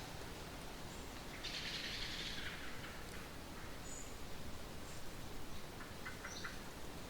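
Trade wind blowing steadily outdoors, with a low rumble and a swell of rustling hiss about a second and a half in. A few short, high bird chirps come through faintly around the middle and near the end.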